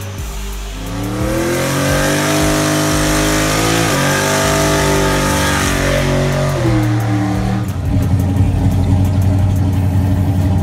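Big-rim donk drag car's V8 engine at full throttle, its pitch climbing steadily with a short dip and climb again about four seconds in, then dropping away. From about eight seconds, a loud, lumpy V8 idle close by.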